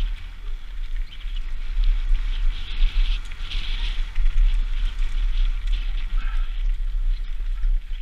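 Mountain bike riding fast down a gravel and dirt trail: wind buffeting a helmet-mounted camera's microphone as a constant low rumble, with a steady hiss of tyres crunching over loose ground.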